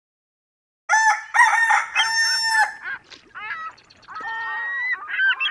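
Fowl calling: a loud cry of held, pitched notes starts about a second in, followed by quieter, shorter calls and one more held note near the end.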